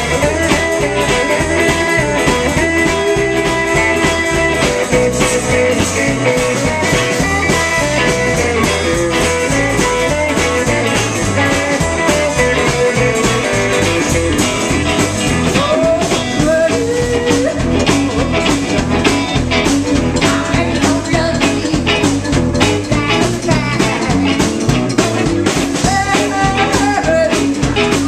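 Live band playing a rock and roll song: electric guitar, upright bass and drums, with a woman singing at times.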